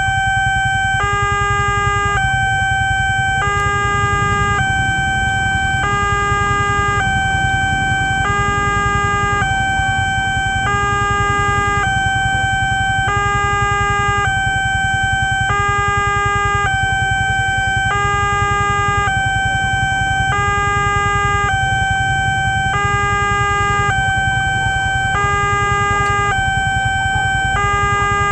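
Railway level-crossing warning alarm from the loudspeaker on the signal post, an electronic two-tone warning that alternates between a lower and a higher note about every second and a quarter, signalling that a train is approaching. A steady low rumble runs underneath.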